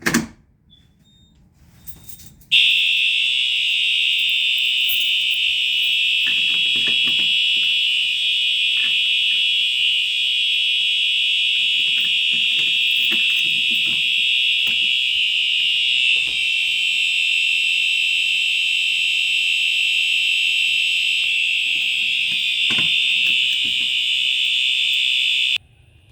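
Home fire alarm system sounding a steady, continuous, high-pitched alarm tone. It comes on suddenly about two and a half seconds in and cuts off abruptly near the end.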